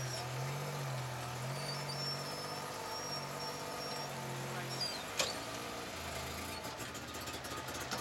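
Vehicle engine running at low revs, its pitch dipping and recovering briefly near the start, with a single sharp knock about five seconds in.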